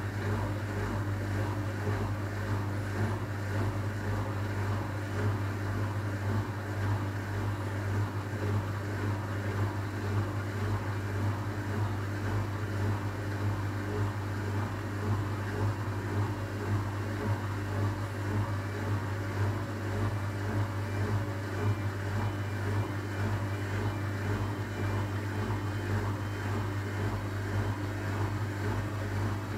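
Hotpoint WMA 30 washing machine during its rinse: the drum turning laundry through water, with a steady low hum from the machine under the water sloshing, which swells and fades about once a second.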